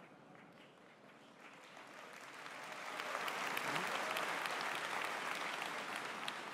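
A large audience applauding in a big hall. The clapping builds up after a quiet first second or so, is fullest in the middle, and tapers off near the end.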